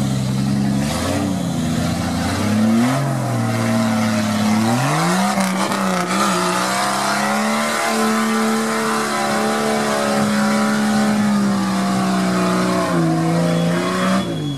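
Jeep Wrangler's engine revving while driving off-road. The pitch rises and falls a few times, then climbs and holds high for about eight seconds before dropping shortly before the end.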